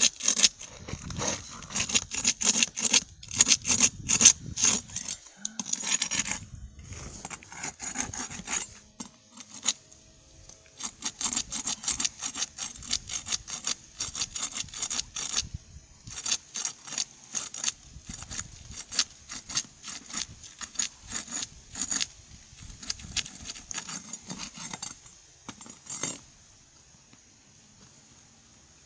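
Rough scraping and rasping on gritty asphalt roof shingles, in quick repeated strokes with short pauses, stopping a few seconds before the end.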